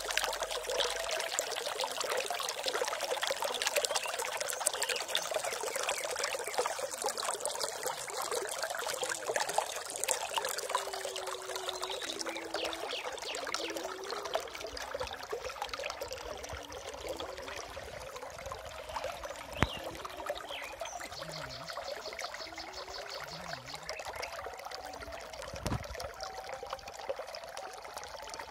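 Water trickling and splashing steadily, like a small stream or runoff pouring over stones. A single sharp tick stands out about twenty seconds in.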